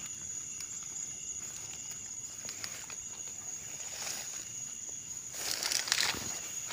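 A steady high-pitched drone of night insects such as crickets, with footsteps and the rustle of grass and weeds being pushed through, loudest for about a second starting around five seconds in.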